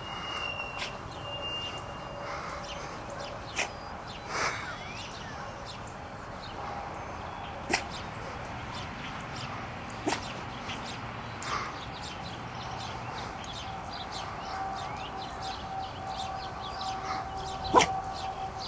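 A small terrier giving short, soft woofs every few seconds rather than full barks, while playfully teasing. The loudest woof comes near the end.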